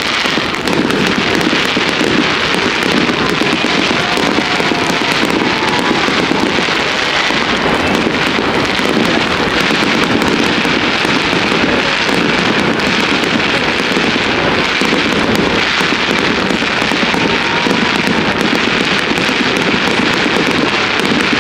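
Fireworks display: aerial shells bursting overhead in a dense, continuous crackling and banging that never lets up.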